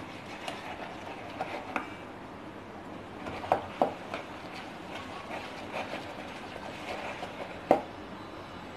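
Wire whisk stirring thick flour-and-curd batter in a plastic bowl: soft irregular scraping and light ticks, with a few sharper clicks.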